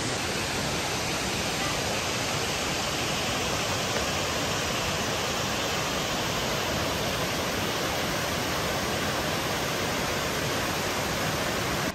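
Waterfall and river rapids rushing, a steady, even noise of falling water.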